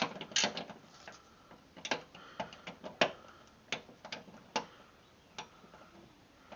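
Wrench tightening a bolt on a lawn mower deck spindle: sharp metal clicks at uneven intervals, roughly one or two a second, the loudest near the start and about three seconds in.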